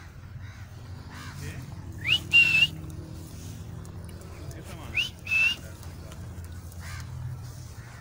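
Alexandrine parakeet whistling a two-note phrase twice, about three seconds apart: a short upward sweep followed by a held, slightly rising note.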